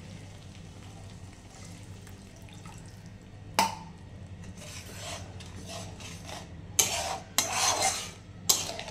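A long metal spatula stirring and scraping thick spinach masala in a metal kadhai, with a sharp clink of metal on metal about a third of the way in and a run of louder scraping strokes near the end.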